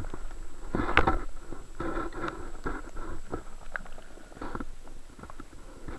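Water gurgling and sloshing around a submerged camera, with irregular clicks and knocks. A louder surge comes about a second in, and the sound grows quieter toward the end.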